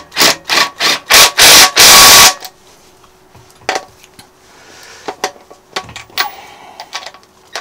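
Small 12-volt cordless power tool spun in short trigger bursts, about three a second, then run in two longer bursts, driving bolts home on an engine block; a few light clicks follow.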